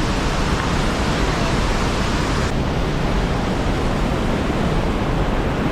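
Waterfall: a loud, steady rush of falling water with no breaks. The highest hiss drops away about two and a half seconds in.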